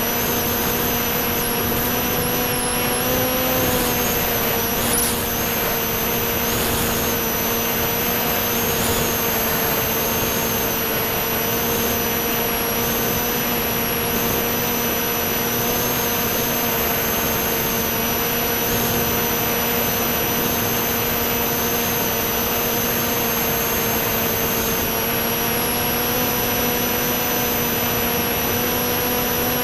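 Electric motor and propeller of a C1 Chaser FPV model plane in flight, heard from its onboard camera: a steady hum with a high whine over air noise, its pitch holding almost constant with a small waver a few seconds in.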